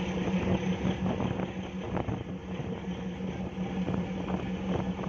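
A boat's engine running with a steady low drone, over the rush and splash of its churning wake.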